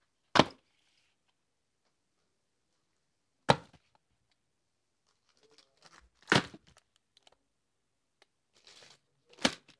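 Boxed and plastic-wrapped packs of art supplies set down one after another on a plastic-covered table: four sharp knocks about three seconds apart, with a faint rustle of packaging before the last one.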